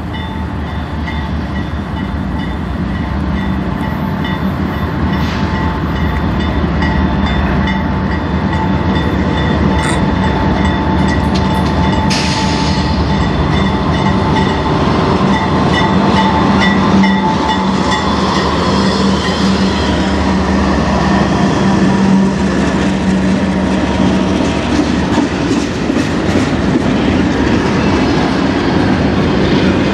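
Two CN diesel-electric freight locomotives approaching and passing with their engines running. Double-stack intermodal cars then roll by, their wheels clicking over the rail joints.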